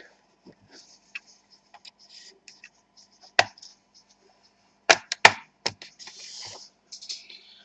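Laptop case being pried open: the plastic palm rest's retaining clips snap loose from the metal bottom cover, with light scraping of the pry tool along the seam. There is one sharp click a few seconds in, then a quick run of three more about halfway through, then a short scrape.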